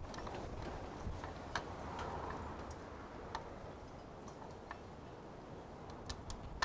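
Hand screwdriver driving screws through a metal mounting bracket into an overhead beam: faint, irregular clicks and ticks as the screw and bracket are turned, over a quiet low background.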